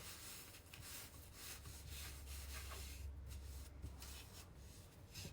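Soft rubbing and scraping of hands handling small items on a table, faint and uneven, over a low steady hum.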